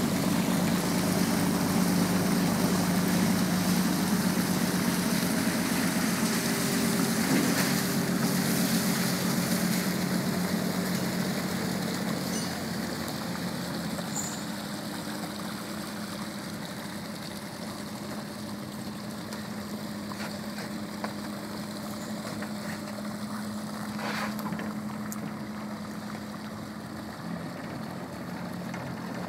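Crab fishing boat's diesel engine running steadily at slow speed, with water washing along the hull. The sound is loudest at first and drops noticeably after about twelve seconds as the boat draws away.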